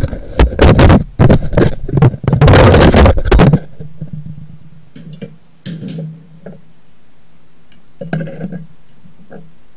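Loud knocking and scraping handling noise as the camera is moved against surfaces and set down, lasting about three and a half seconds. After that comes a steady low hum with a few faint clicks.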